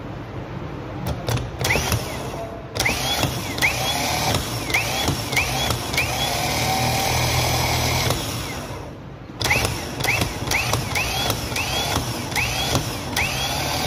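Bosch starter motor bench-tested off a battery cable, energised over and over in quick bursts: each burst starts with a click and a short rising whine as the motor spins up and its pinion is thrown out. There is a few seconds of steadier running, a brief pause about 8 seconds in, then another string of quick bursts.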